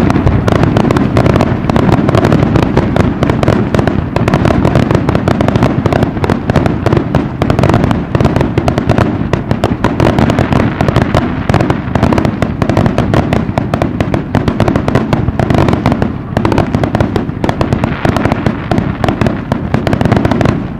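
Fireworks display in full barrage: many aerial shell bursts firing in rapid, overlapping succession, loud and dense with no pause.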